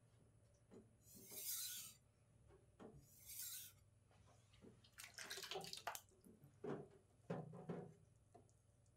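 Faint wet scraping of a knife blade across a wet whetstone, two short strokes in the first few seconds, then a cluster of rapid wet scrapes and clicks and a few soft knocks.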